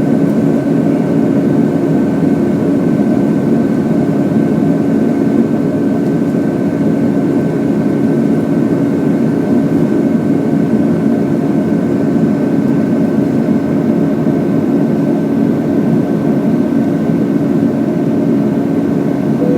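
Steady jet engine and airflow noise of a Boeing 757-200 in flight, heard inside the passenger cabin: an even rushing drone with a constant low hum and a faint high tone.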